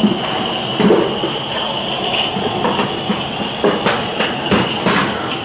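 Gauge 1 live-steam model locomotive running past with a train of wagons, giving a steady high steam hiss. A run of sharp clicks near the end comes from the wagons rolling over the track.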